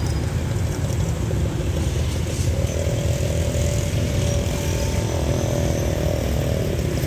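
Diesel locomotive of a passenger train running in the distance as it pulls out, heard as a steady low rumble. A steady droning engine tone joins in about two and a half seconds in and fades near the end.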